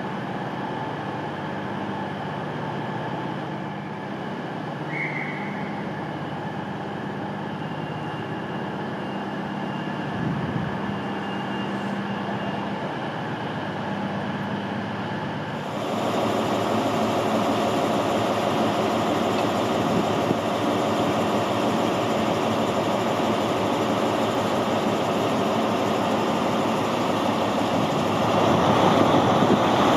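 A diesel train's steady hum under a station trainshed. After a sudden cut, a Class 43 HST power car's diesel engine runs close by, growing louder near the end as the train pulls away.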